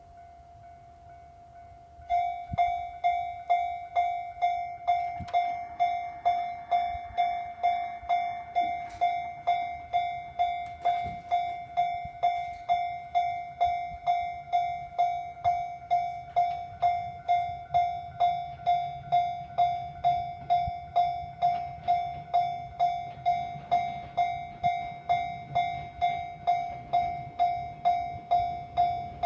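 Railway level-crossing warning bell ringing about twice a second, each strike a single ringing tone that decays before the next. It is faint at first, then loud from about two seconds in.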